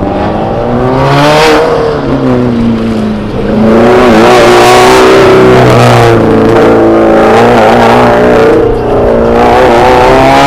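Car engine on an autocross run, revving hard and easing off repeatedly, its pitch climbing and dropping several times as it accelerates and slows between cones.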